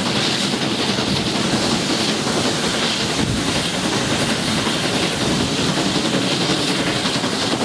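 Steam train heard from an open carriage window: the steady running noise of the coaches on the rails, mixed with the working of the USATC S160 2-8-0 locomotive No. 2251 'Omaha' ahead. There is no whistle.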